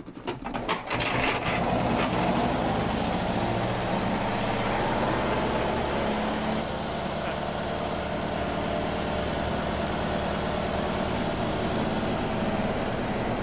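Engine of a 1934 MG sports car turned over by its hand starting handle, catching about a second in and then idling steadily. It is the first start after repair of the valve gear, which the dynamo drives.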